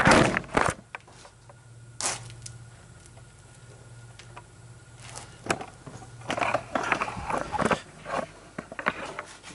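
Action camera clattering as it falls, followed by handling noise: knocks, clicks, scraping and rustling as it is picked up and set back in place. A faint steady low hum sits under the quieter middle stretch.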